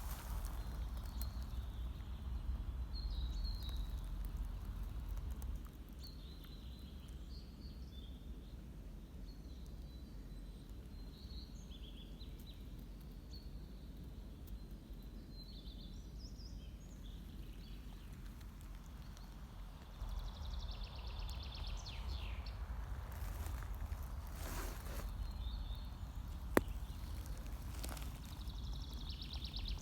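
Forest ambience: small birds chirping in short, scattered phrases over a steady low rumble of wind on the microphone, with rustling that gets louder in the last third and a single sharp click near the end.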